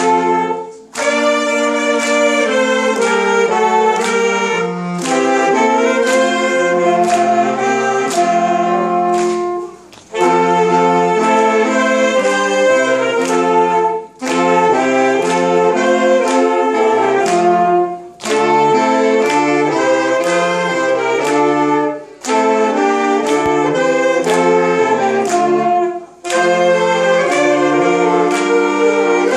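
Saxophone ensemble playing a Christmas carol medley in harmony, several saxophones sounding together, with short breaks between phrases every few seconds.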